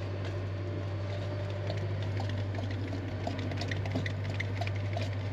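Fuel gurgling and bubbling as a vacuum tool sucks it through a boat engine's fuel line: fuel flowing freely is the sign that the clog in the line has cleared. A steady low hum runs underneath.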